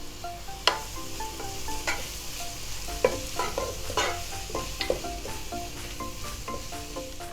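Sliced onions sizzling in hot oil in a pan while a spoon stirs them, knocking and scraping against the pan several times.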